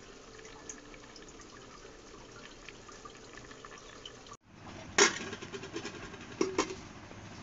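Low steady hiss of curry simmering in a metal cooking pot, then, after a brief break, sharp metallic clanks of a utensil against the pot: one loud clank about five seconds in and two more about a second and a half later.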